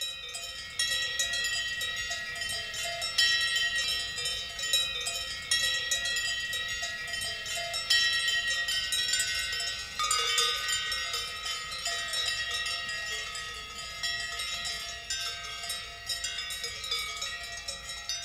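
Many cowbells clanging irregularly at several different pitches, their strikes overlapping, as from a herd grazing on mountain pasture.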